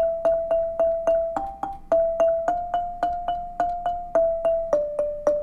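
A lead melody played slowly on a struck, pitched instrument, each note sounded again and again in an even pulse of about three and a half strikes a second. It runs E, a brief G, E, a long F, E, then settles on D.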